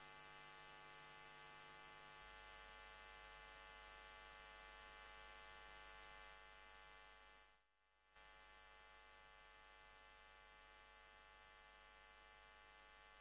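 Faint steady electrical hum, a buzz of many even tones with no performance sound yet, dropping out briefly about eight seconds in.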